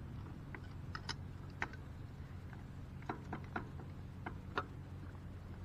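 Scattered, irregular light metal clicks and clinks of a socket extension and wrench working on a stuck bicycle crank bolt, over a steady low hum.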